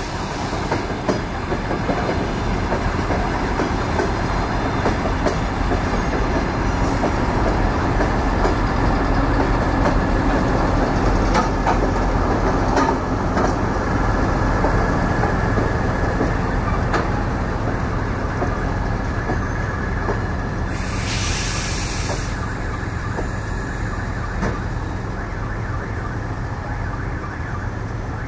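DR1A diesel multiple unit's carriages rolling past on the rails: a steady rumble of wheels with scattered clicks over the rail joints. A short hiss of about a second comes about three-quarters of the way through.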